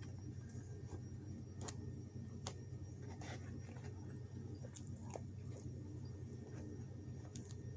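Faint scattered clicks and scrapes of a plastic spoon being handled and scooping food, a handful of separate ticks over a steady low hum.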